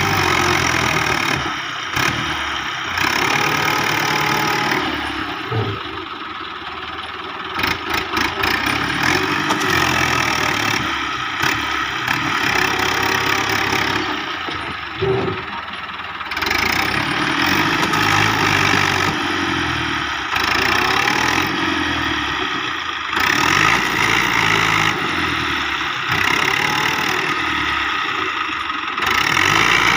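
Dabang 85 tractor's diesel engine running steadily, its revs and loudness swelling and easing off several times as it works.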